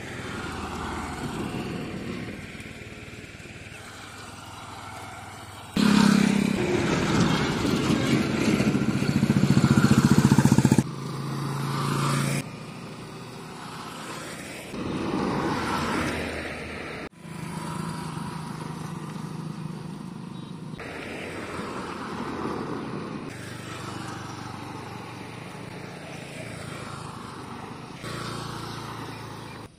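Road traffic: cars and motorcycles driving past on an asphalt road, engines and tyres coming and going. The loudest pass runs for about five seconds a fifth of the way in, and the sound jumps abruptly several times.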